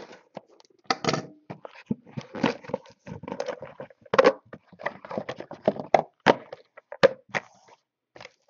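Cardboard trading-card hobby box handled and opened by hand: a run of irregular knocks, taps and short scrapes as its sealed cardboard mini-boxes are pulled out and set down on a table.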